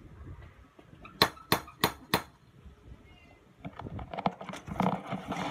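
Four quick, sharp knocks on a front door, evenly spaced, followed by a run of lighter clicks and rustling.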